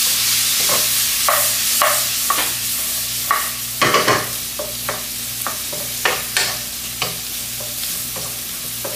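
Sliced shiitake mushrooms and pork belly stir-frying in hot oil over high heat: a steady sizzle with the cooking utensil scraping and knocking against the pan about every half second, loudest around four seconds in.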